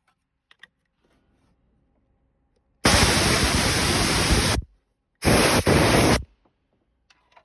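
Two loud hissing blasts of pressurised cleaning spray on the engine bay around the leaking AC pipe, the first lasting almost two seconds and the second about one, with faint clicks of handling before and between them.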